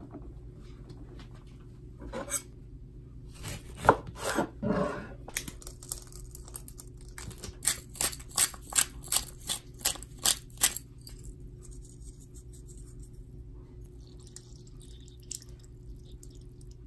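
Food-prep handling sounds on a wooden cutting board: a few knocks and rubs as a lemon is rolled under a hand, then a quick run of about nine sharp clicks, roughly three a second, as pepper goes into a small glass bowl. A steady low hum follows.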